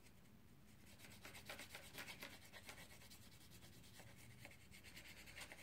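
Green wax crayon rubbed back and forth on paper while colouring in grass, making faint quick scratchy strokes that are a little louder in the first half.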